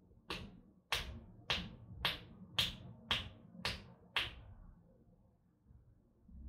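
Percussive hand massage: a hand slapping down on the open palm of a person's raised hand, eight sharp slaps about two a second, stopping after about four seconds.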